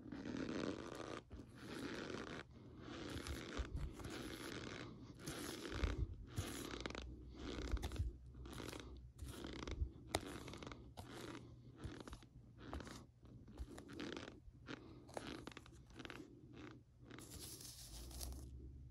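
Spoon scooping and pressing into loose cornstarch powder, making a steady run of crunches, about one to two a second.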